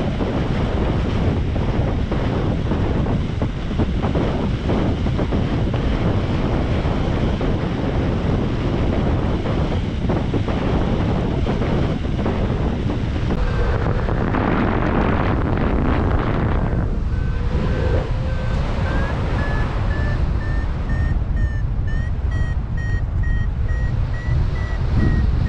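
Wind buffeting the microphone in paraglider flight, gusting harder around the middle. From about halfway, a flight variometer beeps in short repeated tones that climb slowly in pitch, the sign that the glider is climbing in rising air.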